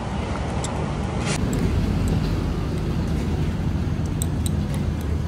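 Steady low rumble of road traffic, with a few light clicks.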